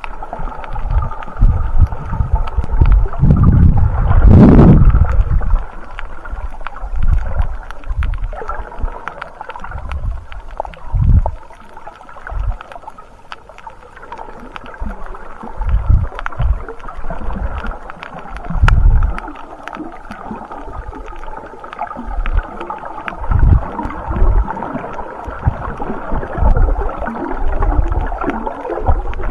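Water sloshing and surging around an underwater camera, muffled, with irregular low swells every second or two and a bigger one about four seconds in.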